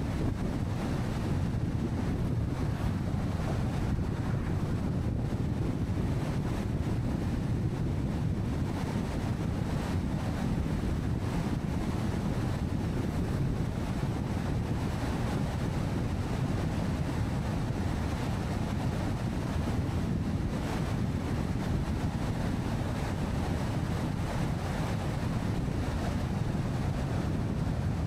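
Car driving on a highway: a steady low rumble of tyre and wind noise that holds even throughout.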